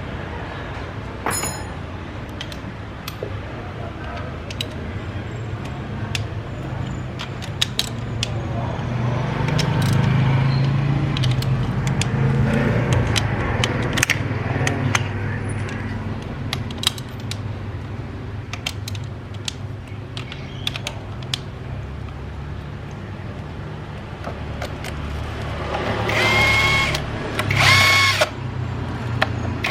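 Workshop tool noise: a steady low hum with scattered clicks and taps, then near the end two short bursts of a power tool whirring.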